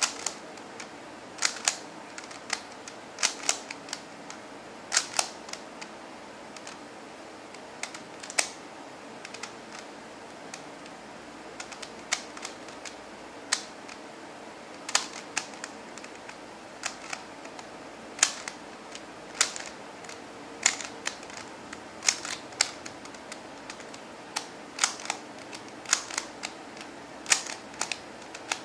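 A stickerless QiYi MoFangGe Master Pyraminx plastic puzzle being turned by hand: sharp plastic clicks as its layers turn, often in quick pairs, about one turn every second or two.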